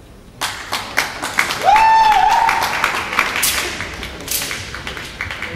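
Audience applauding during a wushu routine, breaking out about half a second in. One voice whoops loudly about a second and a half in, and the clapping fades gradually toward the end.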